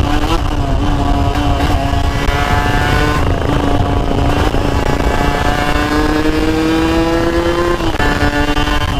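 Motorcycle engine pulling under way, its pitch holding at first, then climbing steadily for a few seconds and dropping suddenly near the end, as at a gear change, over wind rush on the microphone.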